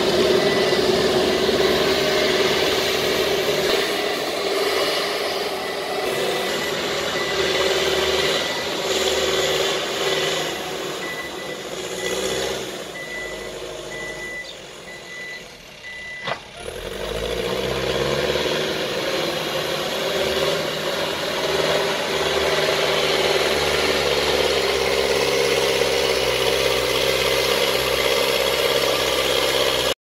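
Mahindra SX90 backhoe loader's diesel engine running under load as it pushes sand, with its reversing alarm beeping at a steady high pitch through much of the first half. Around the middle the engine sound drops briefly, then rises again and settles.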